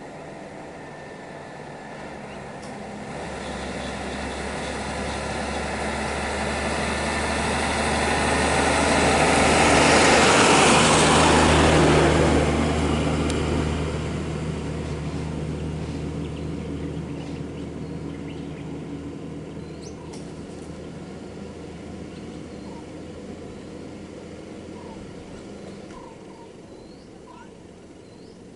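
Tata diesel lorry approaching and driving past close by: its engine and tyres swell to a loud peak about ten seconds in, then fade away over the following dozen seconds. A few faint bird chirps come in near the end.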